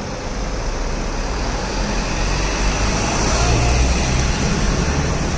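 Box truck driving past close by, its engine rumble growing louder and peaking a little after halfway, over the hum of street traffic.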